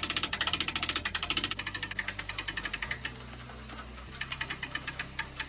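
Ratcheting hand winch clicking rapidly as it hoists a wild hog carcass off the ground. The clicking fades after about a second and a half, stops near 3 s, and comes back briefly past 4 s.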